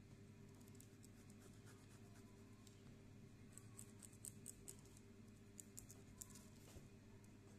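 Faint scratching of a pen drawing lines on masking tape wrapped over a shoe last, in short strokes in two clusters around the middle and near the end, over a low steady hum.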